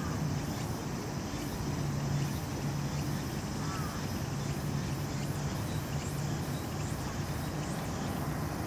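Outdoor background noise: a steady low hum at one pitch over a faint even hiss, with a faint short chirp about four seconds in.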